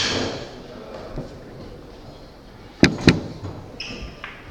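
Two sharp clacks of pool balls striking, about a quarter of a second apart, near the end.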